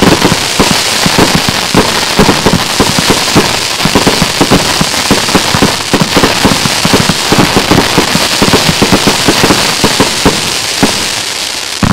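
Rubro Transbomber 144-shot fireworks cake firing in rapid succession, several shots a second, over a constant crackling hiss from the bursting stars. The barrage thins out and fades near the end.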